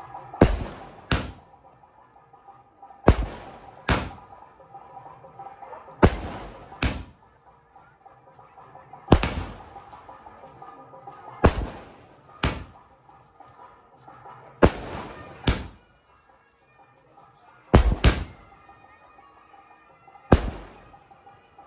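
Bheema brand 30-shot aerial firework cake firing, a shot roughly every three seconds, each heard as two sharp bangs about a second apart.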